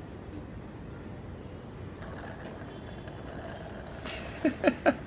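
Low steady background noise, then a short burst of laughter near the end: about six quick 'ha' sounds, each falling in pitch.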